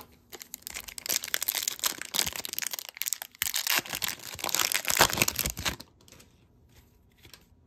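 The wrapper of an O-Pee-Chee hockey card pack being torn open and crinkled by hand, with about five seconds of crackling and a short pause partway through. After that come only a few faint ticks of cards being handled.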